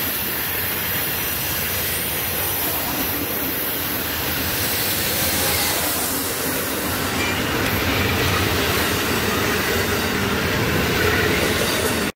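Amtrak Superliner double-deck passenger cars rolling past close by: steady noise of steel wheels running on the rails.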